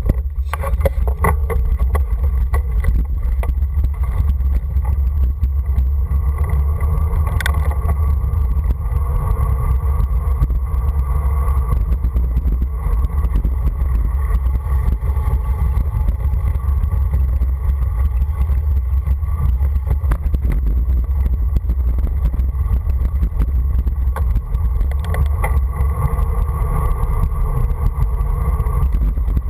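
Steady, loud rumble of wind buffeting the microphone, with tyres rolling on asphalt, as a mountain bike coasts fast downhill.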